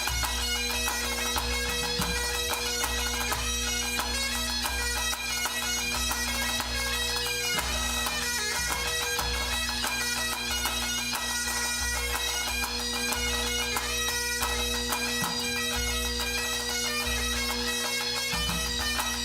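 A Scottish pipe band playing: Great Highland bagpipes sounding steady drones under the chanter melody, with the band's drums beating along.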